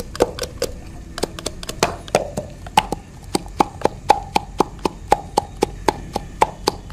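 A rolling pin pounding ginger, garlic and green chillies in a glass: a steady run of knocks, about four a second. From about three seconds in, each strike leaves a short ringing tone from the glass.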